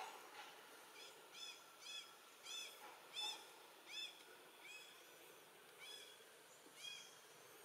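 Baby monkey crying: a faint series of short, high, arching squeals, about two a second at first, then more spaced out toward the end.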